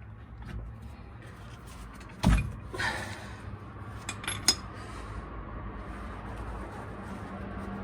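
Metal hand tools clinking on the differential plugs under the truck: one heavy knock about two seconds in, then a few light metallic clinks about two seconds later, over a faint steady background noise.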